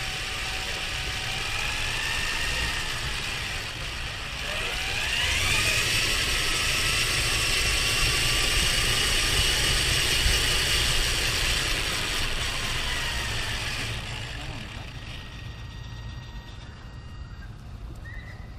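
Engine and road noise inside a moving car: a steady low rumble under tyre hiss. About five seconds in, the engine note rises as the car speeds up and the noise grows louder. It eases off again near the end as the car slows.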